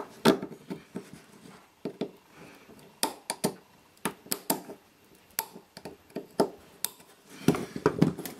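Swiss army knife blade prying at a small metal bracket on a circuit breaker: irregular sharp metal clicks and short scrapes, a dozen or so spread out, with a quicker cluster near the end.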